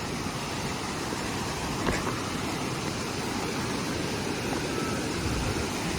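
Waterfall: a steady rush of falling water, with a brief knock about two seconds in.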